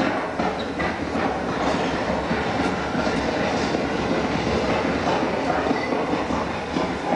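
Steady, dense clattering noise from the dance piece's sound score.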